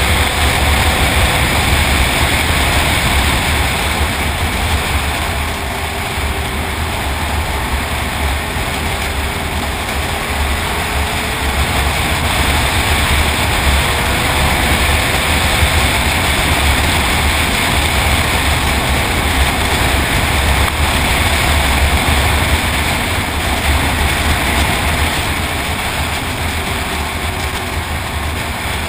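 Snowmobile engine running steadily at trail speed, its pitch wavering a little as the throttle shifts, under heavy wind rumble on the microphone.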